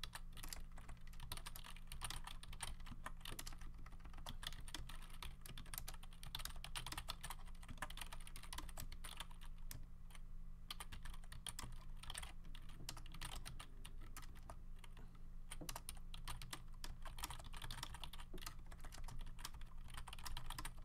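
Typing on a computer keyboard: a quick, uneven run of key clicks with a brief pause about halfway, over a steady low hum.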